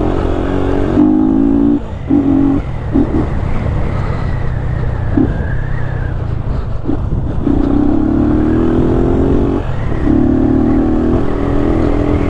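Yamaha Fazer 250's single-cylinder engine running with its air filter removed while riding, accelerating in several pulls with short breaks between them as it shifts gear, the note climbing steadily in the longest pull about two thirds of the way through.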